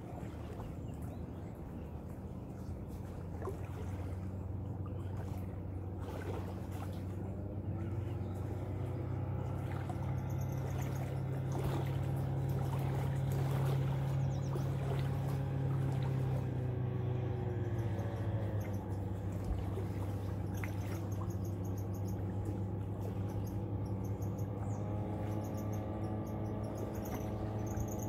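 A motorboat engine droning steadily out on the lake, growing louder toward the middle and easing slightly after, its pitch dipping a little about two-thirds of the way through. Small waves lap at the shore, and faint high insect chirps pulse in and out.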